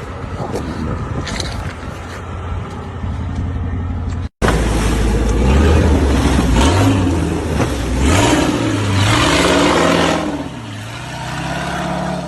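4x4 off-road vehicle engine running and revving, its pitch rising and falling repeatedly. A brief break about four seconds in, after which the engine is louder.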